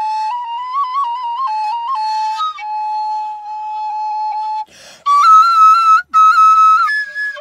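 Wooden kaval, the end-blown shepherd's flute, playing a slow ornamented melody: quick turning grace notes, then a long held note. After a breathy break it comes back louder on higher notes.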